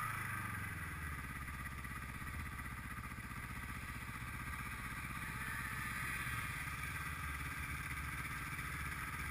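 Snowmobile engine idling with a low, even pulse.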